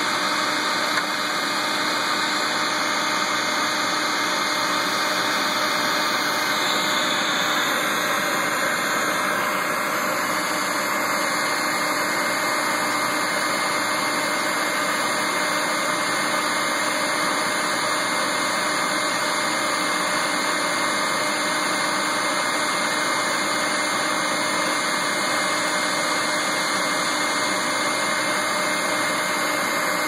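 Bee vacuum's motor running steadily, drawing air through the hose to suck a honey bee swarm off a tree branch: an even rushing with a faint constant whine.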